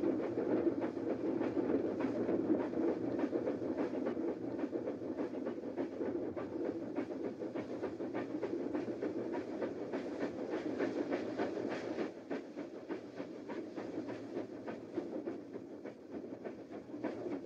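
Added steam-train sound effect: a steam locomotive running with a steady puffing exhaust and dense rapid clicking of wheels over the rails. It eases somewhat quieter about two-thirds of the way through.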